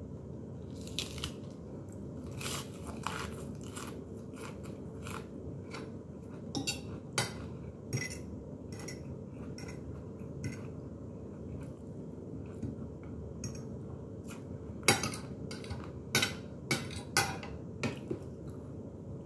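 Crunchy bites and chewing of raw lettuce and food, mixed with a metal fork clinking and scraping on a plate, with a run of louder sharp clicks near the end. A steady low hum sits underneath.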